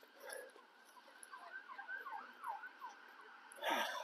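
Faint emergency-vehicle sirens wailing across the city, their pitch sweeping up and down over and over. A short burst of noise comes near the end.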